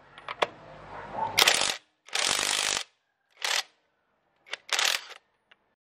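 Impact wrench hammering on a car wheel's lug nut in about five short bursts, after a few light clicks.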